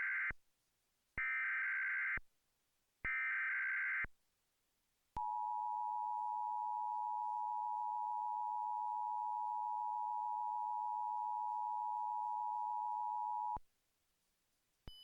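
Emergency Alert System test tones from a Trilithic EASyCAST encoder: three SAME digital header bursts, each about a second long and the first already under way, followed by the steady two-tone EAS attention signal held for about eight seconds and cut off sharply.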